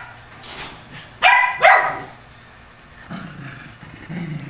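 Dog barking sharply, two loud barks about a second in after a fainter one, then a low growl near the end: a dog warning off another dog.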